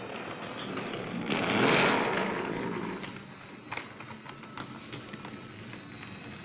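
Battery-powered toy truck's small electric motor whirring as it pulls wagons along wooden railway track. It swells loudest about a second and a half in, then gives way to light clicks of wheels passing over the track joints.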